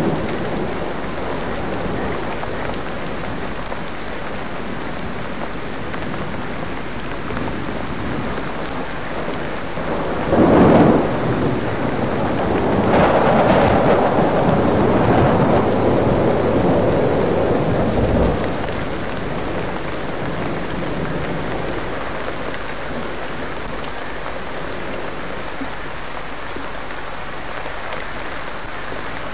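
Heavy rain falling steadily in a thunderstorm. About ten seconds in a sharp thunderclap cracks, followed by several seconds of rolling thunder that ends with a short thump.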